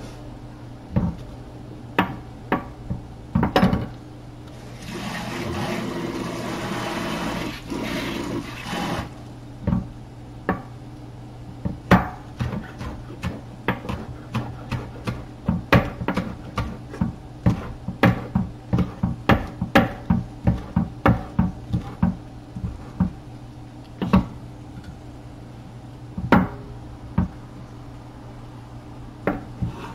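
Chef's knife chopping green onions on a wooden cutting board: a run of sharp chops, about two to three a second, from about ten seconds in until about twenty-four seconds, with a few scattered knocks before and after. A hissing, rustling noise lasts about four seconds, starting about five seconds in, over a steady low hum.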